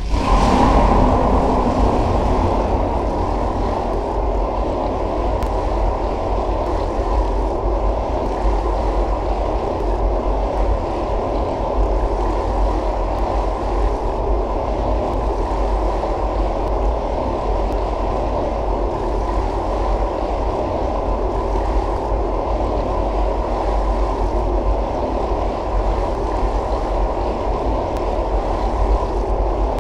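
Steady, low rushing of water, brighter for about the first second, then holding even.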